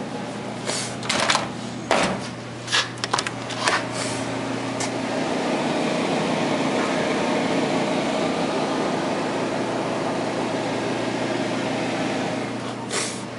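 Deli prep refrigerator running: a steady electrical hum with fan noise that grows louder and fuller about five seconds in. A few sharp clicks and knocks come in the first few seconds.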